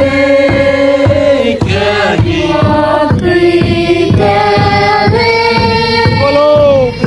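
A song with sung vocals held on long notes over a steady beat.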